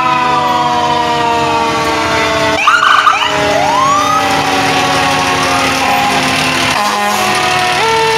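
Several fire truck sirens wailing at once as a line of fire engines passes, their overlapping tones sliding slowly in pitch. A louder short burst of quick rising and falling tones comes about three seconds in.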